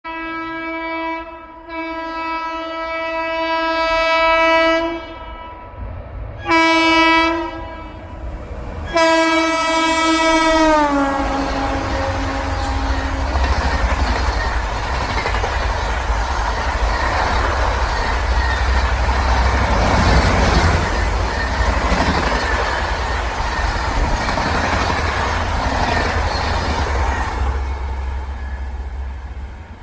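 Locomotive horn of the 12307 Howrah–Jodhpur Express: one long blast, then a short one, then a third whose pitch drops as the locomotive passes. Then the loud rumble and wheel clatter of the coaches going by, fading near the end.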